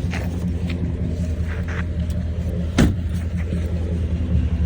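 Chrysler 300 SRT8's 6.4-litre Hemi V8 idling steadily, with a few faint ticks and one sharp click a little under three seconds in. The owner suspects the ticking is lifter tick, the typical "Hemi tick", or an exhaust leak.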